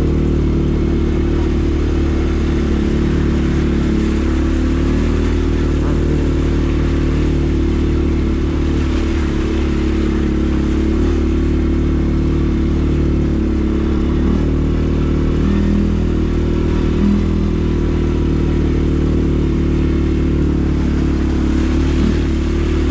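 ATV engine running at a steady, even speed under way on a dirt trail, with little change in pitch.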